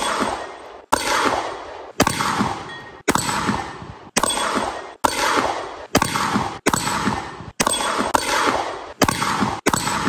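A run of pistol shots, about one a second, each a sharp bang followed by a metallic ringing decay that cuts off abruptly just before the next shot.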